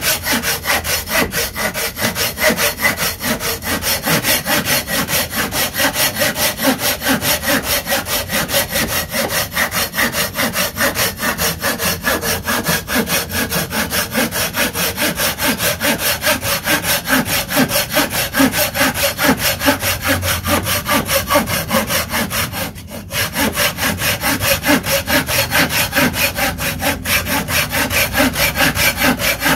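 A Silky Pocketboy 170 folding pull saw cutting through a wooden block in fast, even back-and-forth strokes, the teeth rasping through the wood. There is a brief pause about three-quarters of the way through, then the strokes start again.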